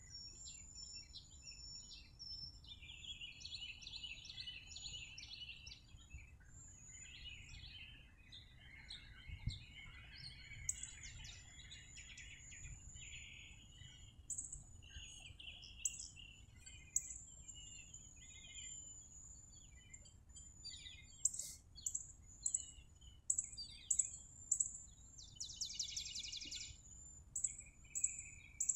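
Wild birds chirping and singing: several overlapping calls, including trills and short high chirps that come more often and louder in the second half, over a faint steady low background rumble.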